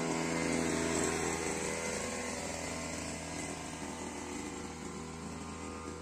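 An engine running steadily at an even speed, slowly growing fainter.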